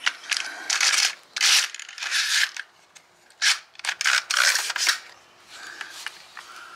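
A strip of framing nails sliding and scraping along the magazine rail of a Milwaukee M18 cordless 21-degree framing nailer as it is loaded, in a string of rasping strokes, each under a second long.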